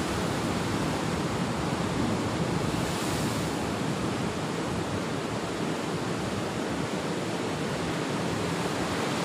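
Steady rushing of sea surf, an even noise without breaks.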